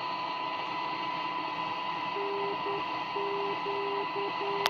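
A long-wave radio beacon's Morse code identifier from the Cossor CR4212A valve radio's loudspeaker: a low tone keyed on and off in dots and dashes, starting about halfway in, over steady static hiss and a continuous high whistle. A sharp click comes right at the end.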